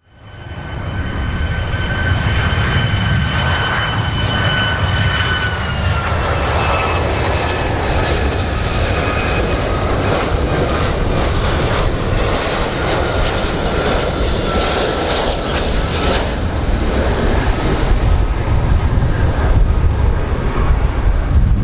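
Jet engines of a Boeing 757 airliner on final approach with gear down. The noise fades in, then holds steady with a high two-tone whine that drops slightly in pitch about six seconds in. The whine fades out a few seconds before the end, leaving a deep rumble.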